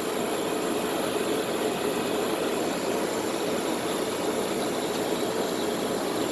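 2001 Carrier window air conditioner running on high cool: a steady rush of fan air over the running compressor, even and unchanging throughout.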